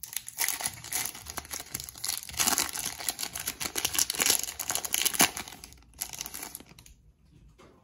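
Foil wrapper of a Pokémon TCG Celebrations booster pack crinkling as it is handled and torn open, a dense crackling that dies away near the end.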